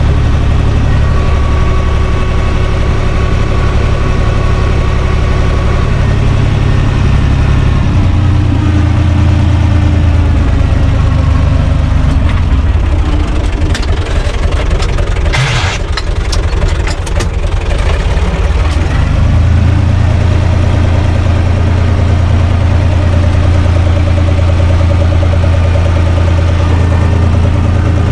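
UTB U445 DT 4x4 tractor's four-cylinder diesel engine running under way, heard from inside the cab. Its note shifts about a quarter of the way in, falls back for a few seconds with a brief clatter around the middle, then picks up and runs steadily again.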